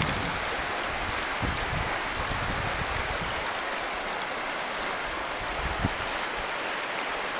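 Steady rushing of river water, with light wind buffeting on the microphone in the first couple of seconds and one brief knock about six seconds in.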